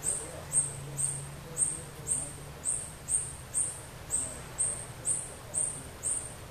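Insect calling in a steady rhythm: short, high-pitched pulses, about two a second, each the same as the last.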